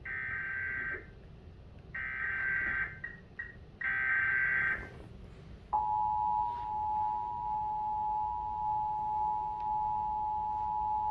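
Emergency Alert System test played from a television. The SAME header data burst sounds three times, each about a second long with about a second between, and the header marks the start of a Required Monthly Test. About six seconds in, the steady two-tone attention signal starts and holds.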